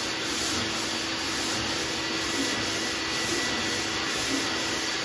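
Shop dust-extractor vacuum running steadily, drawing through the hose of a hand sanding block, with a steady hum under its rush. Beneath it, the block scrubs back and forth lightly over primer on a steel truck door.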